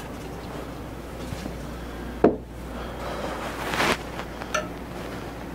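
Handling sounds at a small engine's carburettor: a sharp knock about two seconds in, then a short hiss that swells and cuts off near four seconds, and a light click.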